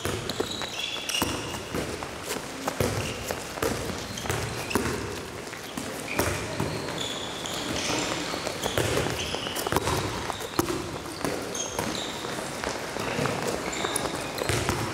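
Handballs bouncing and slapping on a sports-hall floor, with players' shoes squeaking as they run: many irregular sharp thuds and short high squeaks, echoing in the large hall.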